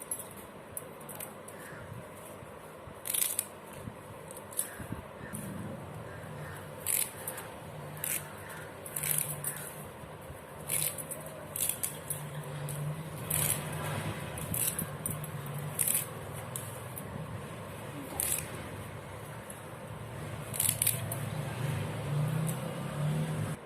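Kitchen handling noise: a run of short sharp clicks and rustles as containers and produce are moved about, with a low steady hum that starts about five seconds in and grows louder near the end.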